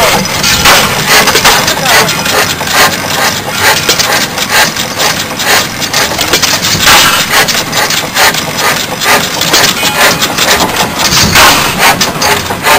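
Antique stationary gas engines running with a fast, irregular clatter.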